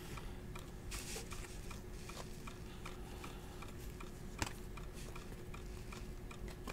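Trading cards being handled and flipped through, with a few soft clicks as cards are slid across one another. A faint, even ticking and a low steady hum run underneath.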